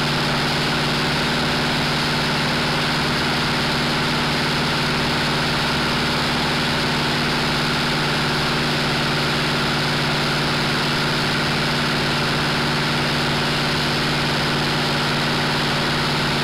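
Light aircraft's piston engine running steadily under climb power, heard from inside the cockpit as an even drone with no change in pitch.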